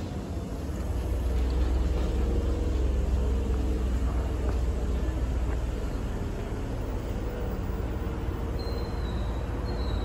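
Hankyu 6000 series electric train standing at the platform: a steady low rumble and hum from the train that swells about a second in and then holds.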